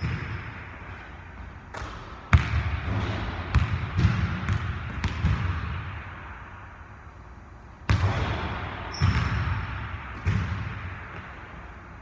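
Basketball bouncing on a hardwood gym floor: separate bounces at uneven intervals, each followed by a hall echo, the loudest about two seconds in and again near eight seconds.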